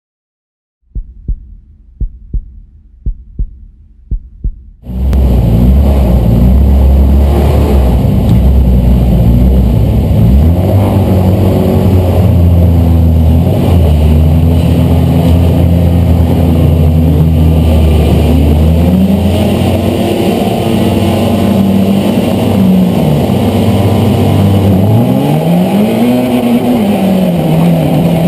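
Paired short thuds about a second apart, like a heartbeat. Then, from about five seconds in, the loud onboard sound of an autocross car's engine driven hard on a dirt track. Its pitch drops and climbs again several times near the end.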